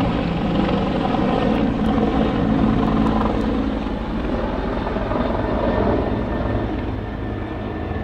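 Helicopter flying low overhead, its rotor running loud and steady, easing off slightly over the last few seconds.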